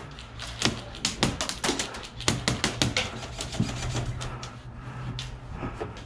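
Airsoft fire: rapid, irregular sharp clicks and cracks of guns firing and BBs striking around a wooden fort. They come several a second at first and thin out in the second half.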